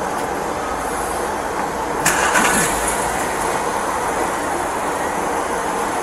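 Steady rumble and noise of a motor vehicle, with a brief rattle about two seconds in.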